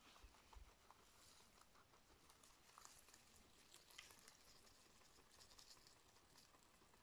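Faint crisp crunching and rustling of a rabbit and a guinea pig chewing fresh grass, heard as scattered small clicks over a quiet hiss.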